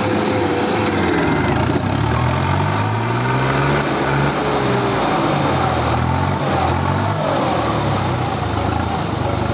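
Diesel tractor engines straining at full load, a Swaraj 855 FE three-cylinder diesel and a Sonalika pulling against each other in a tug-of-war, the engine note wavering up and down as they fight for grip.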